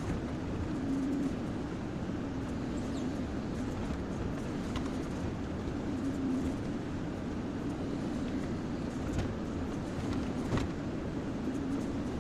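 Kobelco SK-140XM excavator's diesel engine running steadily under working load, swelling slightly every few seconds, with a few faint knocks.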